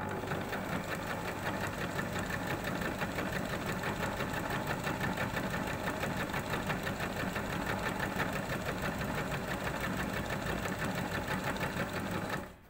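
Domestic sewing machine running steadily at speed, sewing a long-stitch gathering line through a folded calico strip, with a fast even rhythm of needle strokes. It stops near the end.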